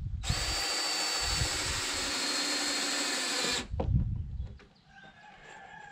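Cordless drill running steadily with a high whine for about three seconds while fastening a wooden stair stringer to the deck framing, then stopping, followed by a single knock.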